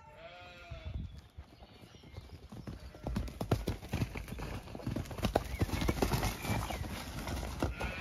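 Horses galloping on a soft grass-and-mud track, a rapid run of hoofbeat thuds that comes in about three seconds in and grows louder as they come close.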